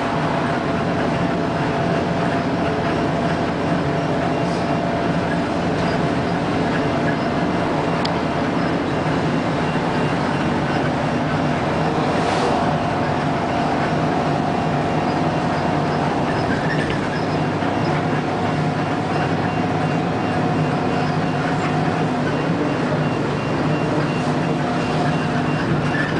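Steady running noise of a moving vehicle, with a faint steady whine over a constant low hum.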